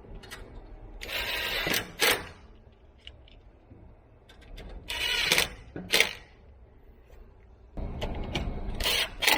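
Cordless drill-driver driving a screw in three short runs, each ending in a sharp click.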